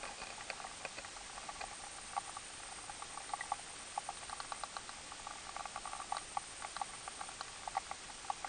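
Underwater sound of a shallow stream flowing over a stony bed, picked up by an action camera in its housing: a steady hiss with irregular soft clicks and ticks, several a second.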